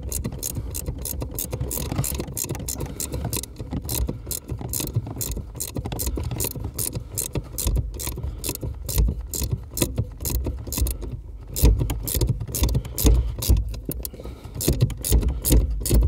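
Spanners working a 13 mm bolt on a VW Golf Mk4 clutch pedal as it is tightened: a long run of rapid metallic clicks, with heavier low knocks and bumps in the second half.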